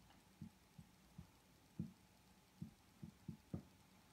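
Marker writing on a whiteboard: about nine soft, low taps at an uneven pace as the tip meets the board stroke by stroke, over a faint steady hum.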